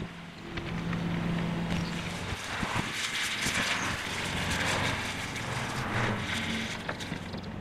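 Demolition worksite sound sped up about tenfold: a dense hiss thick with rapid clicks and knocks over a low machine hum.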